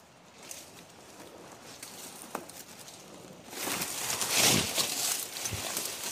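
Leaves and undergrowth rustling, starting about halfway through after a quieter stretch with a few faint clicks, and swelling louder near the end.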